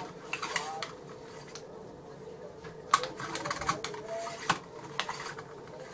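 Metal cleaning rod clicking and knocking against a rifle's barrel as a patch is run through the bore: scattered sharp clicks, the loudest about three seconds in.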